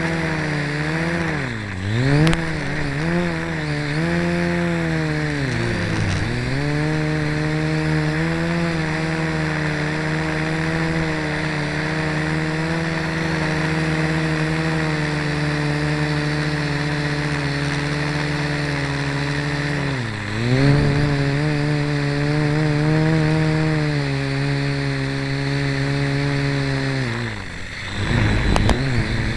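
Blade mQX micro quadcopter's four brushed motors and propellers buzzing in flight, heard close from the camera on its frame. The pitch holds steady but dips and recovers a few times as the throttle is cut and reapplied, dropping furthest near the end.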